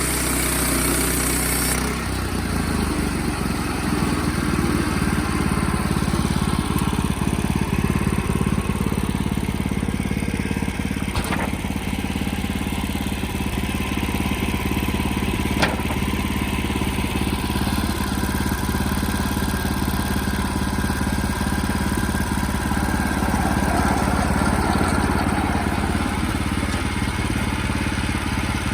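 Sawmill engine running steadily. The note shifts about two seconds in, and there are two short sharp clicks later on.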